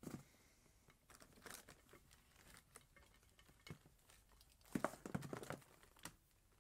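Faint rustling and crinkling of plastic wrapping and welding cables being handled, with a few light clicks; the busiest stretch comes about five seconds in.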